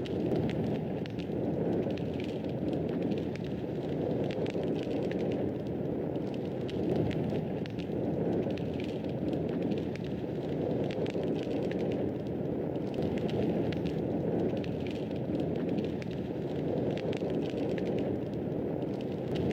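Fire burning in a fireplace, crackling: a steady low rush of flame with frequent small, sharp crackles scattered irregularly throughout.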